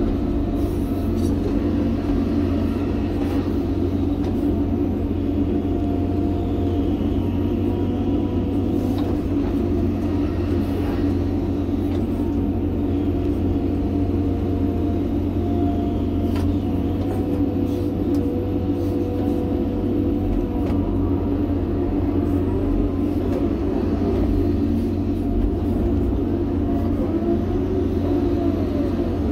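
John Deere 350G excavator's diesel engine running steadily under working load, heard from inside the cab. A faint hydraulic whine rises and falls in pitch now and then as the boom and bucket move.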